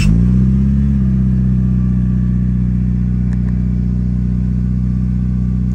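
Mitsubishi Lancer Evolution VIII's turbocharged four-cylinder engine catching and flaring up, then settling about a second in into a steady idle through an aftermarket exhaust, a little bit loud.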